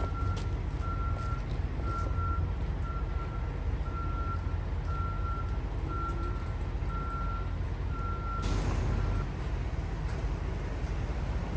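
Truck's reversing alarm beeping about once a second over a diesel engine's low running. About eight seconds in comes a short hiss of air, typical of air brakes being set, and the beeping stops soon after.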